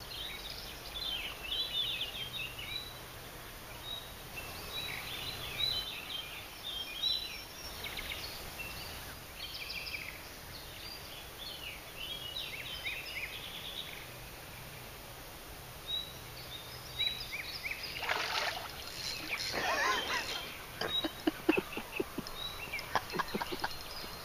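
Small birds singing and chirping in quick, varied phrases over a faint steady low hum. For a few seconds near the end the calls turn louder and busier.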